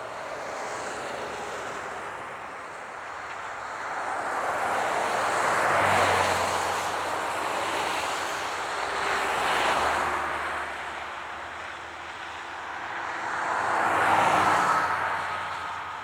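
Highway traffic: a steady rush of tyre and engine noise with vehicles passing one after another, each swelling and fading away. The three loudest passes come about six seconds in, near ten seconds and about fourteen seconds in.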